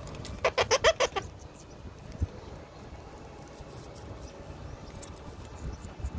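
Indian ringneck parakeet giving a rapid string of about six short calls, all within a second near the start. A single dull knock follows about two seconds in.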